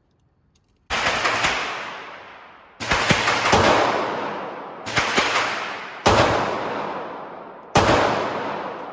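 Walther P99 AS pistol fired five times at an unhurried pace, roughly one to two seconds apart. Each shot is a sharp crack with a long echoing tail.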